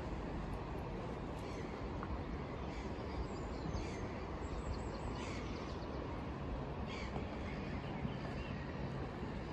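Birds calling a few times over a steady low outdoor rumble of wind and distant city noise.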